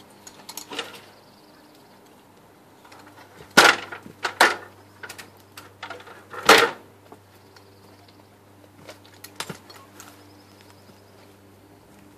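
A stepladder being carried and set up: a few sharp knocks and clatters, the loudest about three and a half, four and a half and six and a half seconds in, with lighter clicks between.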